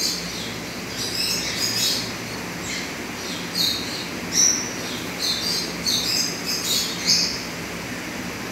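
Small birds chirping: about a dozen short, high chirps at irregular intervals.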